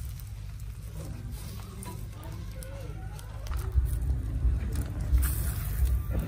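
Fat sizzling on hot charcoal beneath a whole pig roasting on a spit, over a low rumble that grows louder about halfway through.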